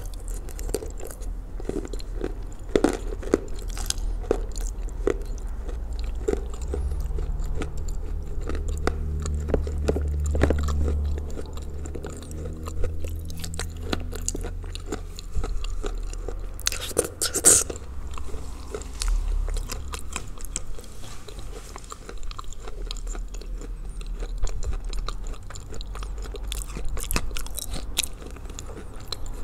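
Close-up crunching and chewing of Ural clay soaked in blue Uzbek clay, with many sharp crunches as pieces are bitten, a louder burst of crunching a little past halfway, and a low hum underneath for several seconds in the middle.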